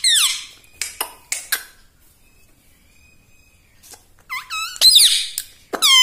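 Indian ringneck parrot calling in high-pitched, squeaky notes that glide up and down. A few sharp clicks come about a second in, the middle is quiet, and the calls start again and end in a long, steady, whistle-like note.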